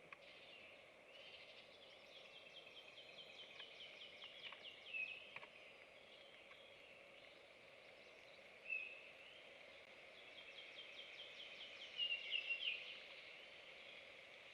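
A faint songbird singing: a quick series of repeated high notes, heard twice, with a few louder single notes between, over a steady low background hiss.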